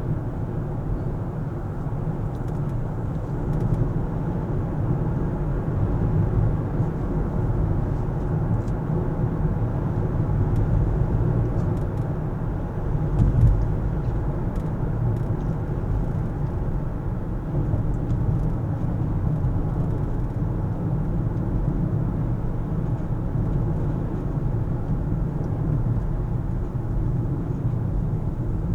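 A car being driven, with steady low road and engine noise and a brief louder swell about halfway through.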